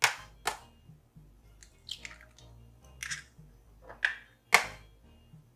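Eggs being cracked against the edge of a bowl: a series of sharp taps and cracks spaced about a second apart.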